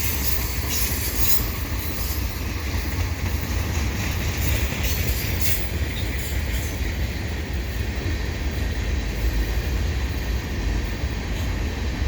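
Freight cars of a long, slow CN mixed freight rolling past: a steady rumble of steel wheels on the rails, with high-pitched wheel squeals now and then.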